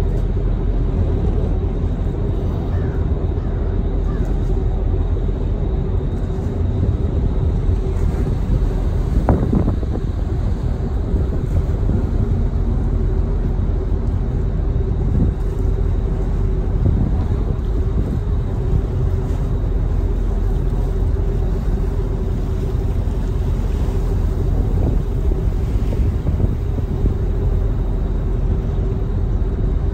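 Staten Island Ferry's engines droning steadily: a constant low rumble with a held hum over it, not changing in level.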